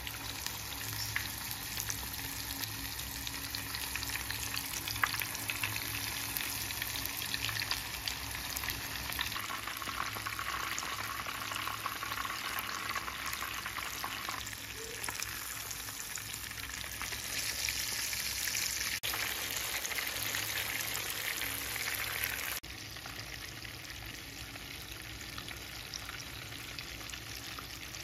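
Masala-coated fish pieces shallow-frying in hot oil in a pan: a steady, dense sizzle and crackle, dropping a little in level near the end.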